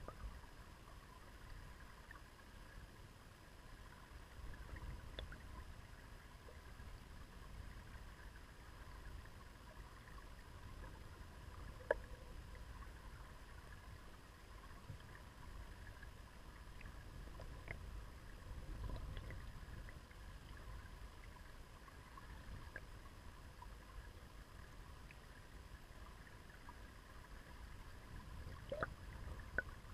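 River current heard underwater: a low, muffled rumble of flowing water, with a few sharp ticks, the loudest about twelve seconds in and a couple more near the end.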